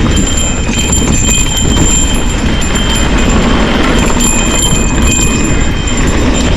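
A cow bell on a mountain bike rings almost without pause as the bike rattles down a rough trail. Its clear high tones fade and return over a dense low rumble of tyres and wind.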